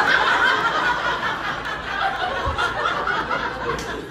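Audience laughing together, many voices overlapping, easing off toward the end.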